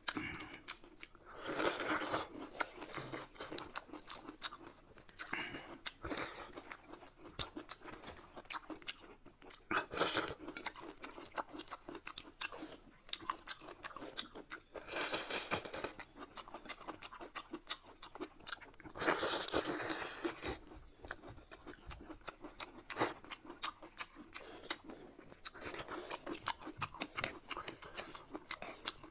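Noodles slurped up in long drawn bursts about six times, with close chewing and mouth clicks in between.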